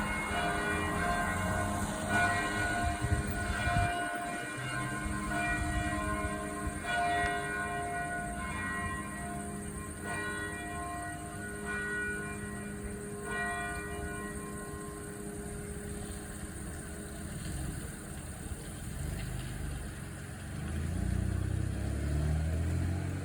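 Church bell tolling, struck about every two to three seconds, each stroke leaving a long humming ring. The strokes stop about halfway through and the ringing dies away, then a low rumble rises near the end.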